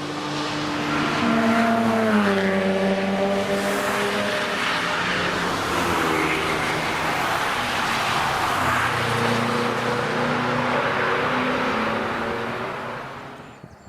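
Cars passing at high speed on a racetrack, engines under full load. The engine note drops sharply as a car goes by about two seconds in, followed by a sustained rush of engine and tyre noise that fades away near the end.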